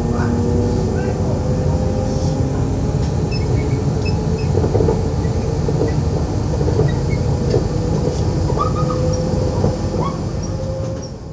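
SNCF Z 20500-series (Z2N) double-deck electric commuter train running, a steady heavy rumble with a faint electric motor whine held above it.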